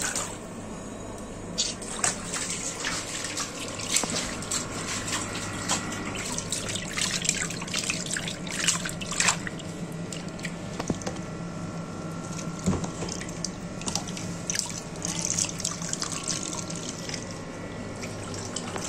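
Water splashing and sloshing in a plastic tub as a soapy cat is scrubbed and rinsed by hand, in short irregular splashes over a steady hum.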